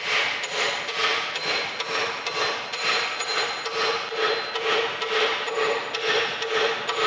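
Dead blow hammer tapping the splined gear shaft, with its new bearing, into the cast-iron apron of a Monarch 16-inch lathe: about two even taps a second, each with a short metallic ring, as the shaft is driven home.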